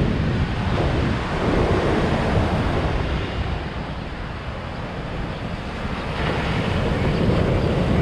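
Surf breaking and washing up a sand beach, with strong wind buffeting the microphone in a low rumble. It eases a little mid-way, then builds again.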